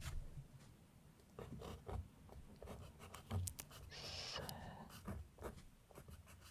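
Pencil writing letters on paper: a run of short strokes and taps, with one longer stroke about four seconds in.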